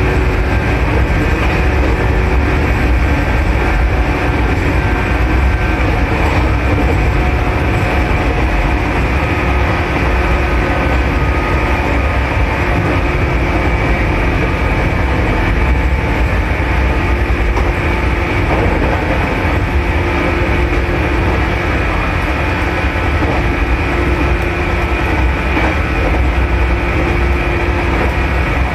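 Steady running noise inside a 413 series electric train car, a heavy low rumble from wheels and track, as the train coasts through a dead section with its power cut. A steady hum from the on-board electrical equipment fades out a few seconds in and comes back about halfway through.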